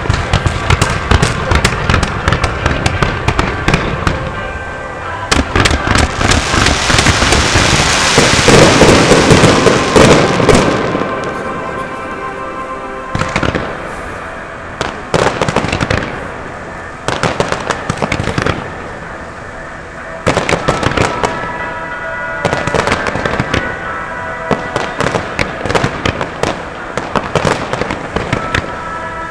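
Fireworks display: a steady run of shell bursts and pops, building to a dense, loud stretch of crackling between about six and eleven seconds in, then thinning to separate bangs. Music plays underneath.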